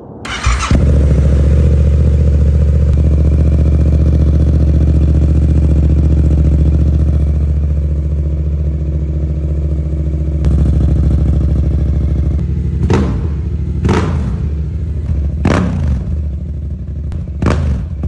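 Yamaha R7's 689 cc parallel-twin engine starting with a brief crank, then idling steadily. In the last several seconds it is blipped four times, each rev rising and falling quickly.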